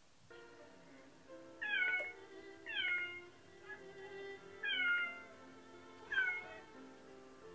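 Domestic cat meowing four times, each call short and falling in pitch, over soft background music.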